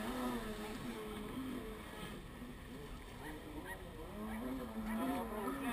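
Distant jet ski engine revving, its pitch rising and falling in waves, louder in two spells near the start and near the end.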